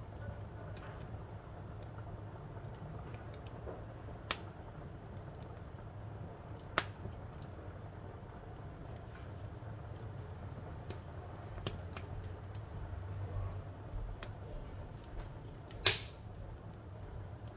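Wood fire burning in a wood-fired cookstove: a low steady rumble of the flames with irregular sharp crackles and pops, the loudest one near the end.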